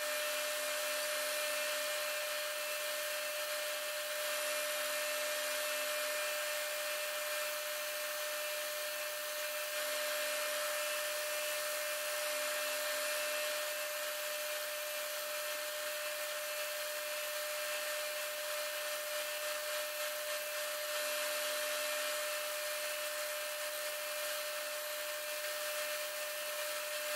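Benchtop woodworking machine running with a steady whine over a hiss while a wooden dowel is worked against it, shaping the dowel's tip to a point.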